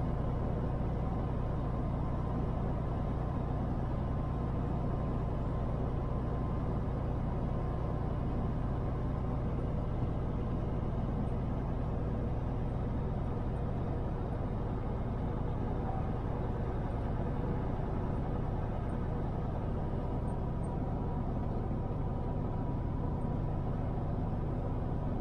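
Semi truck's diesel engine droning steadily with tyre and road noise at cruising speed, heard from inside the cab.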